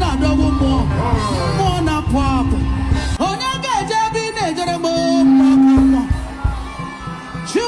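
Music with a voice singing in wavering, gliding lines over a low pulsing beat. The low beat drops away about three seconds in, and a loud long held note follows around five to six seconds in.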